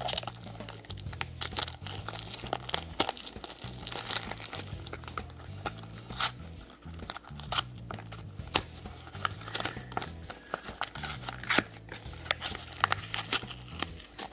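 Toy surprise packaging crinkling and tearing as it is unwrapped by hand, with many short crackles throughout. Soft background music plays underneath.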